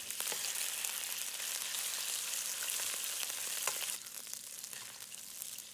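Shrimp sizzling in hot oil in a wok as they cook, a steady high hiss, with a few light clicks of a wooden spatula stirring them. The sizzle eases a little about four seconds in.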